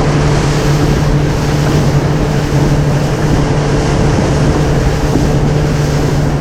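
Boat motor running at a steady hum while the boat moves over choppy water, with wind buffeting the microphone and waves splashing against the hull.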